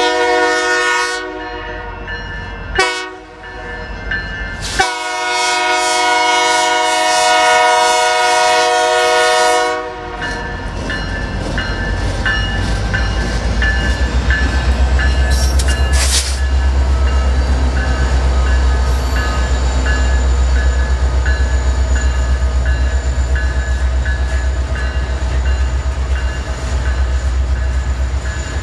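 BNSF freight train's diesel locomotive air horn sounding a chord in three blasts: one ending about a second in, a short one, then a long one of about five seconds, the close of a grade-crossing signal. The train then passes close by with a loud, deep, steady rumble and a regular clickety-clack of wheels over the rail joints.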